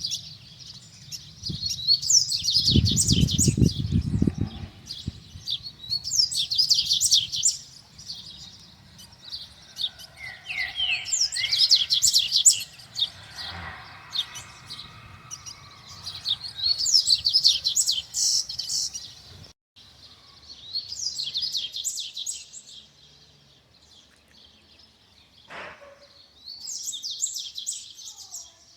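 Double-collared seedeater (coleiro) singing: six fast, high twittering phrases of about two seconds each, separated by short pauses. A low rumble sounds under the first phrase.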